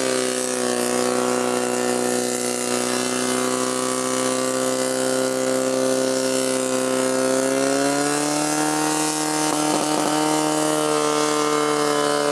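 Portable fire pump engine running steadily at high revs while it pumps water into the hoses. Its pitch rises slightly about eight seconds in.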